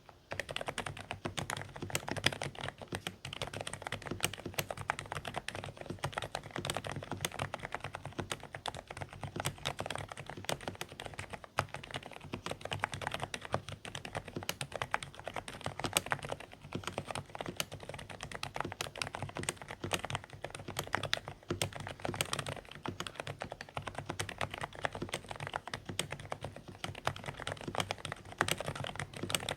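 Continuous fast typing on a Dareu A104 Pro mechanical keyboard with silent beige switches: a dense, irregular stream of quiet keystroke clicks with a slightly muffled, soft thock.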